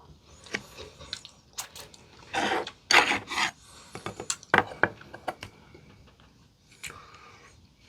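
Crunching of crispy potato-crusted fried chicken being bitten and chewed: a few loud, rasping crunches near the middle, with smaller crackles and sharp clicks around them.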